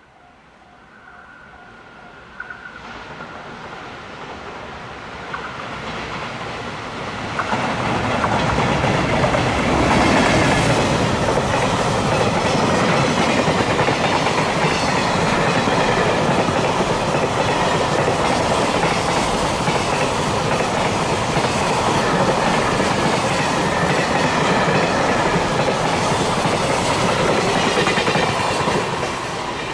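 An EF510 electric locomotive approaching with a container freight train, growing louder over the first several seconds. The long train of container wagons then passes close by, a loud steady run of wheels on rails that eases slightly near the end.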